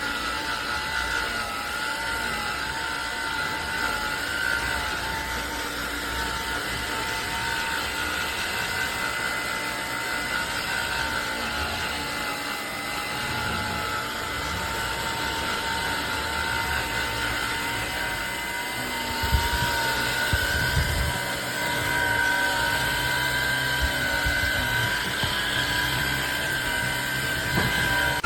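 Craftsman V20 cordless stick vacuum running with a steady high-pitched motor whine, its pitch wavering slightly; a few low knocks come about two-thirds of the way through.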